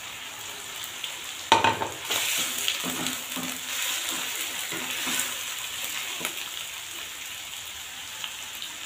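Chicken pieces frying in ghee in a nonstick wok, sizzling steadily while a slotted spatula stirs and scrapes them, with a sharp knock about one and a half seconds in.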